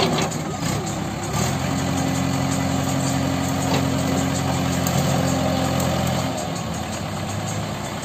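JCB backhoe loader's diesel engine running, its note rising about a second and a half in, holding steady, then dropping away a little past six seconds.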